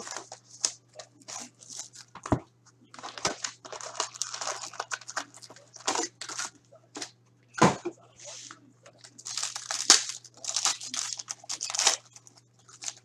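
Hockey card packs being torn open, their wrappers ripping and crinkling in a string of irregular short rips and rustles.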